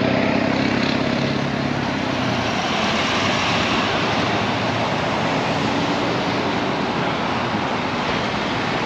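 Road traffic on Highway 1 passing close by: a steady hiss of tyres with the hum of a passing vehicle's engine, strongest in the first couple of seconds and then fading.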